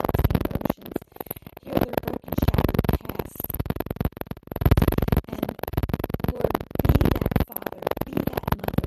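Synthesizer music that swells and falls back every second or two.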